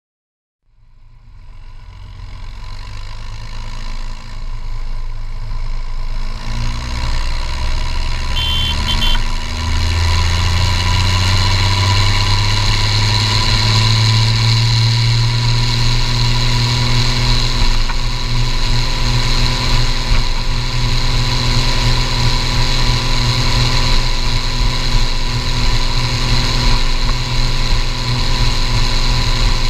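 Case International 1455XL tractor's turbocharged six-cylinder diesel running through a straight-pipe exhaust, heard from the cab. It comes in about a second in and grows louder, its pitch rising as the tractor accelerates, then it holds a steady note at road speed with a constant turbo whistle above it.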